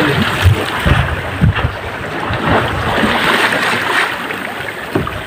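Wind buffeting the microphone over the sea wash around a fishing boat's hull, with a few dull low knocks in the first second and a half.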